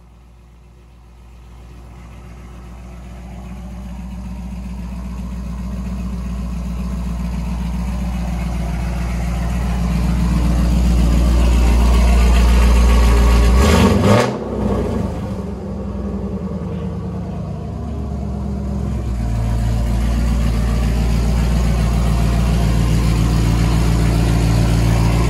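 A straight-piped C5 Corvette Z06's LS6 V8, exhausting through the rear bumper, idling with a deep steady note that grows louder as the exhaust exits come close. About halfway through there is one short rev, and then it settles back to idle.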